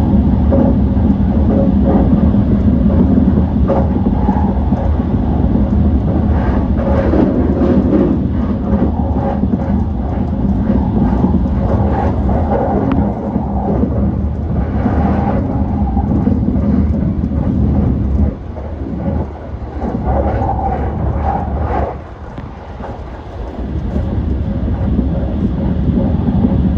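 E235-1000 series electric multiple unit running along the line: a loud, steady rumble of wheels on track. The level dips briefly about two-thirds of the way through and again a few seconds later.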